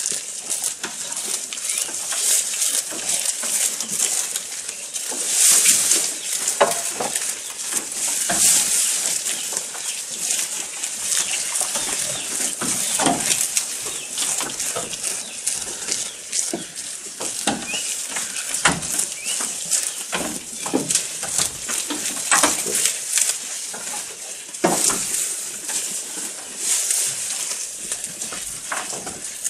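Goats eating long green fodder blades at a wooden feeding rail: a dense, crisp rustling and crackling of leaves being pulled, torn and chewed, with many short crunches throughout.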